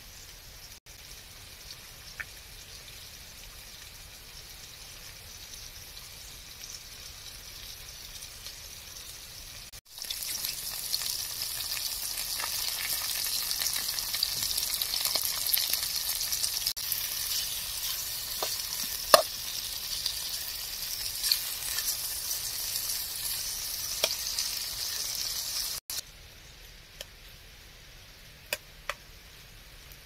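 Potato and tomato slices and white cubes sizzling in hot oil in a frying pan on a portable gas stove, a steady high hiss with occasional sharp ticks. The sizzle is much louder from about ten seconds in until near the end, then drops back.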